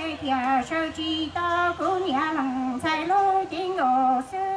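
A woman singing a Hmong song solo into a microphone over a PA, with held notes that slide and bend between pitches. A low steady note sounds underneath for the first couple of seconds.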